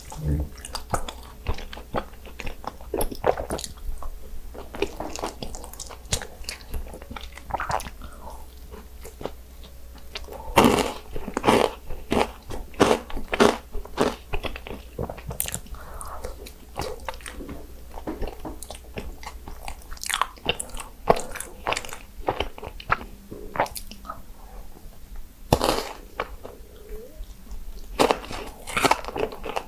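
A person chewing and biting into chocolate mochi, with many irregular sharp wet mouth clicks and smacks.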